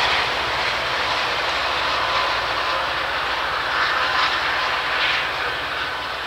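Amtrak Piedmont passenger train, led by an F59 diesel locomotive, passing close by: a steady diesel engine drone with the rumble of wheels on the rails, starting to fade near the end.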